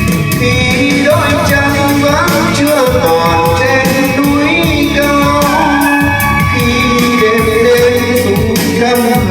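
Music: an instrumental passage of a slow Vietnamese ballad, with a wavering melody line over bass and a steady beat.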